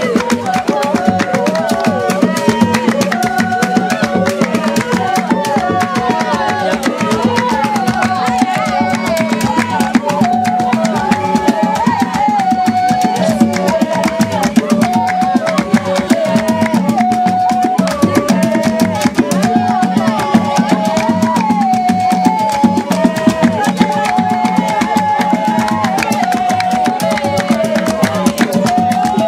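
Dance music driven by fast, continuous drumming, with a melody line moving in steps over it and a steady low drone underneath.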